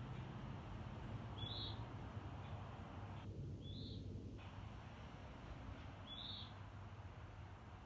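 A bird's short, high-pitched call, given three times about two to three seconds apart, over a steady low background rumble.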